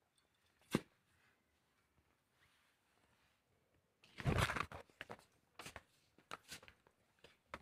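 Handling noise on a phone microphone: a sharp tap about a second in, then a burst of rubbing and scraping about four seconds in, followed by several short knocks as the phone is moved and gripped.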